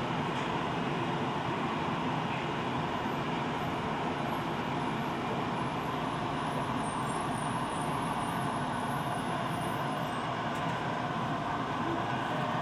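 Steady cabin noise inside a Tokyo Metro Ginza Line subway car: an even, unbroken rush with a faint low hum and no distinct clacks or knocks.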